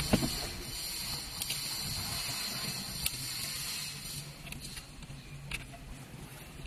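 A few sharp plastic clicks and handling rattles as coaxial plugs are pulled from the back of a Jaguar XJ's metal-cased factory head unit, the loudest click right at the start, over a steady hiss and low hum.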